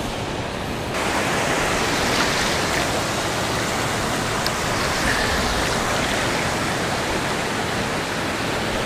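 Ocean surf washing through the shallows, a steady rush of water that gets louder about a second in.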